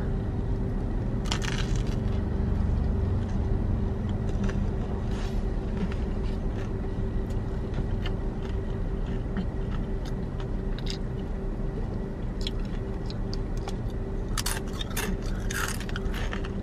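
A person biting into a cheese sub sandwich with shredded lettuce and chewing it, with crisp crunches about a second in and a cluster of them near the end. A steady low hum runs underneath.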